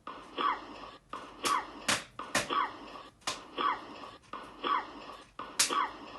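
A man's short cough repeated over and over as an edited loop, about once a second, each repeat cut off abruptly, with sharp clicks among the coughs.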